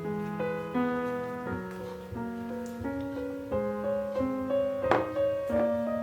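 Background solo piano music, a brisk light melody with moving notes. A single short knock sounds about five seconds in.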